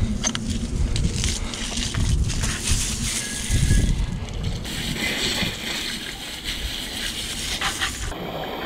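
Garden hose spraying water onto a muddy mountain bike, a continuous hissing splash as the jet hits the frame and wheels.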